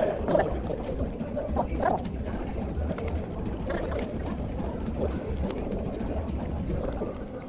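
Café room noise: a low steady rumble with faint, indistinct voices, a few brief bits of chatter in the first couple of seconds.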